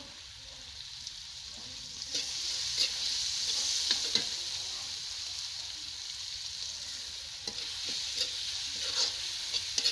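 Chopped tomatoes, onion and ground coriander sizzling in hot oil in a kadai while a spatula stirs them, scraping and knocking against the pan. The sizzle grows louder about two seconds in, with short spatula knocks scattered through.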